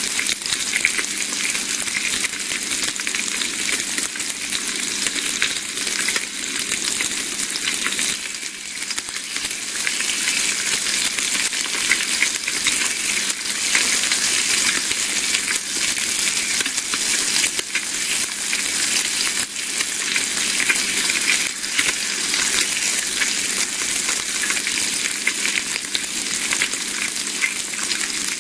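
Bacon sizzling in a frying pan: a steady dense hiss of hot fat with many tiny crackling pops, easing slightly for a moment about eight seconds in.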